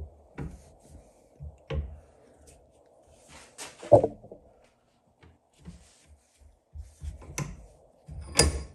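Small knife blade carving a wooden lure blank clamped in a bench vise: irregular knocks, taps and short scrapes as wood is cut away, the loudest about four seconds in and another cluster near the end.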